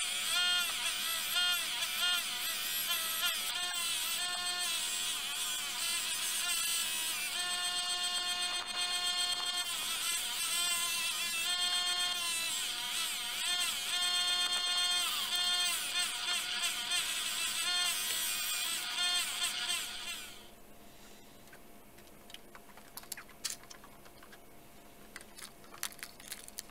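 Sioux bench grinder running with a cloth buffing wheel while a steel axe head is buffed on it, its motor whine wavering up and down in pitch. About twenty seconds in the sound stops, leaving quiet with faint scattered clicks and knocks.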